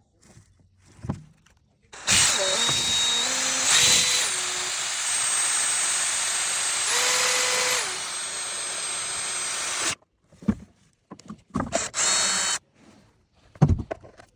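Power drill running, boring a hole in the paint sprayer's housing beside the switch to mount a fuse holder. It runs steadily for about eight seconds with its pitch shifting as the load changes, then gives a short second run near the end.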